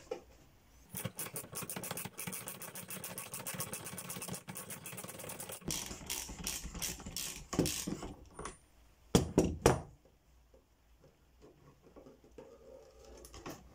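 Ratchet wrench with a 32 mm socket clicking rapidly and evenly for about five seconds as the top cap of an upside-down motorcycle fork is undone, then a few slower, louder clicks. Just after the middle come three loud sharp knocks, then faint handling sounds as the loosened cap is turned by hand.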